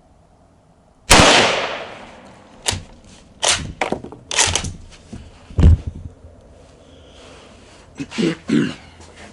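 A single shot from a Yugoslavian M48 bolt-action Mauser rifle about a second in, ringing out and fading over about a second. It is followed by a run of sharp metallic clacks and knocks, one of them loud and deep, as the bolt is worked. A few softer knocks come near the end.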